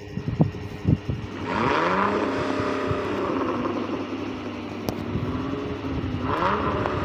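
Motor vehicle engine sound effect revving up, holding a steady run, then revving up again near the end. A few sharp clicks of plastic toys being handled come in the first second or so.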